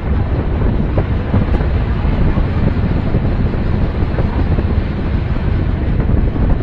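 Loud, steady wind rumble buffeting the microphone of a camera held out of a moving train's door.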